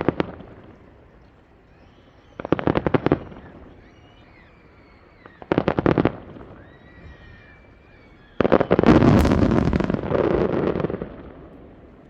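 Aerial fireworks going off: a quick volley of crackling bursts about two and a half seconds in, another around six seconds, then a longer, louder barrage of dense crackles and bangs from about eight and a half to eleven seconds.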